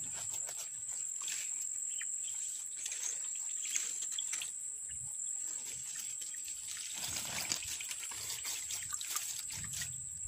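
Marsh ambience: a steady high-pitched insect drone with scattered small clicks and rustles.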